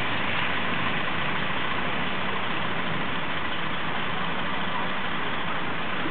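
Steady city street traffic noise with engine rumble, unchanging throughout.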